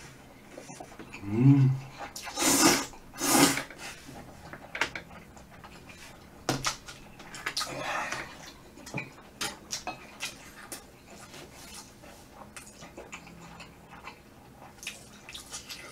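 Eating sounds: loud slurping of glass noodles, twice in quick succession a few seconds in, after a short low hum. Then chewing and wet mouth sounds with scattered small clicks of a wooden spoon and chopsticks against the cup and metal pan.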